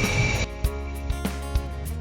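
Background music with plucked-string notes and a beat. It cuts in about half a second in, when the noisy sound before it stops abruptly.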